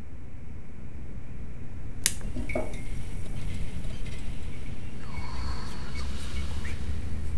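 A low, steady rumble that swells slowly, with one sharp click about two seconds in, followed by faint glassy clinks and thin ringing tones.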